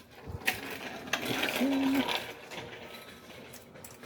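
Ratchet clicking as a bolt is run in. A sharp click about half a second in is followed by about a second of rapid, louder ratcheting, which then fades.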